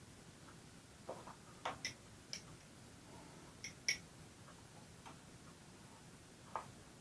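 A few faint, irregular clicks and light ticks, spaced unevenly with quiet room tone between them.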